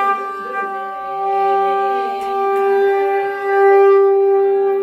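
Conch shell (shankh) blown in one long, steady note that swells and eases in loudness, sounded for a Ganesh puja.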